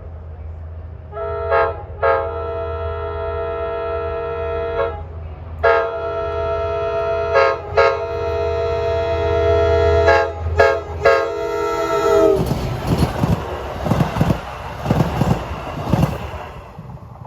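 Nathan K5LA five-chime air horn on a DE30AC diesel locomotive, sounded in two long blasts with brief accents, the second held about six seconds, over the steady rumble of the diesel engine. About twelve seconds in, the horn stops and the train passes close by, its wheels clacking rhythmically over the rail joints.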